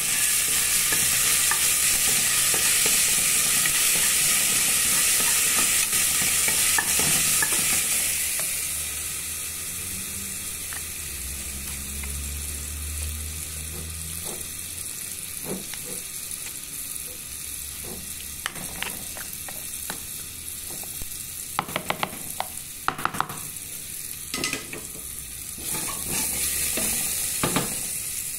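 Garlic frying in hot oil in a metal pot, sizzling loudly for the first several seconds and then more quietly, while a wooden spoon stirs it. In the second half, a few sharp clicks and knocks of the spoon against the pot.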